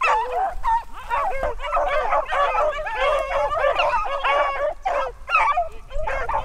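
Pack of beagles baying in full cry, several dogs' voices overlapping without a break as they run a rabbit.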